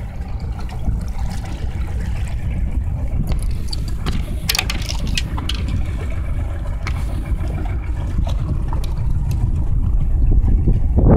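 Steady low rumble of wind buffeting the microphone, with a short cluster of sharp clicks about four and a half seconds in.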